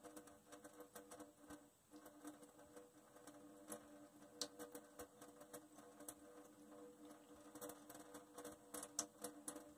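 Near silence: a thin stream from a kitchen tap trickling faintly into a stainless steel sink, with scattered faint ticks and a low steady hum underneath.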